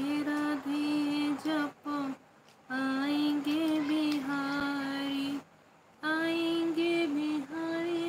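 A woman's voice singing a slow devotional chant in long, nearly level held notes, with two short breaths or pauses between phrases.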